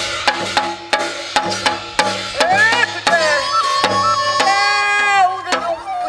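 Korean shamanic ritual (gut) accompaniment: drum strokes about three a second in a steady rhythm. From about two and a half seconds in, a high wind instrument joins with a long wavering melody, and it stops shortly before the end.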